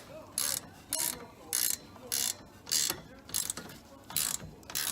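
Hand ratchet with a 15 socket clicking in short, evenly spaced strokes, about eight in all, a rasp of pawl clicks on each back-swing. It is tightening down the top caliper bolt of the rear brake.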